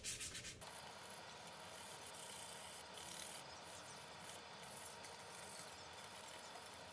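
Sped-up hand sanding of a compacted aluminum foil ball with fine sandpaper: fast rubbing strokes that cut off suddenly about half a second in, followed by quieter, steady rubbing and handling.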